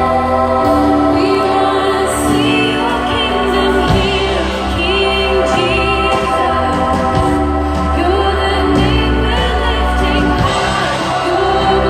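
Live worship music: a worship band playing a slow song, with singing over held chords and a steady bass.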